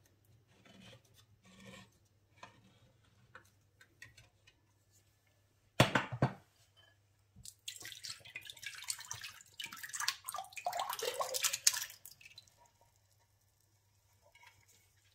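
A hand-held can opener clicking and scraping faintly around the rim of a tin can, then a single sharp metallic clank about six seconds in. Canned berries and their syrup then pour and splash into a glass bowl for about four seconds.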